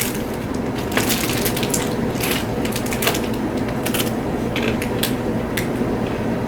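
Crunching on a hard, dry cracker-like biscuit: a run of irregular crisp cracks and crunches.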